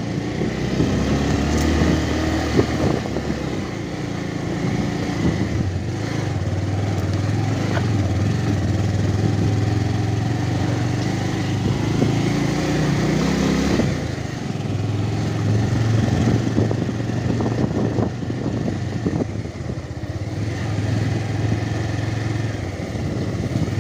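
Motorcycle engine running as it rides along a rough village lane. The engine note climbs about halfway through and drops off sharply a couple of seconds later, then settles back to a steady run.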